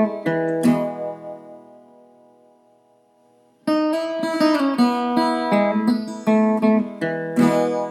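Intro music on acoustic guitar, plucked and strummed. About a second in a chord rings out and fades nearly to silence, and the playing starts again about three and a half seconds in.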